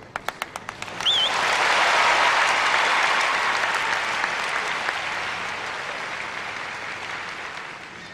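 Theatre audience applauding. It opens with a quick run of sharp clicks, swells suddenly about a second in with a brief wavering whistle, and then slowly dies away.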